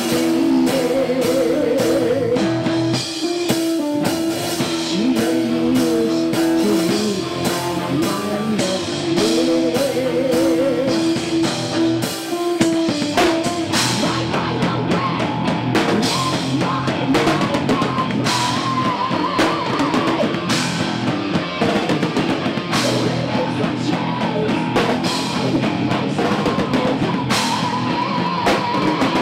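A live heavy metal band playing through amplifiers: distorted electric guitar with held, wavering notes over bass guitar and a drum kit. The drumming grows busier about halfway through.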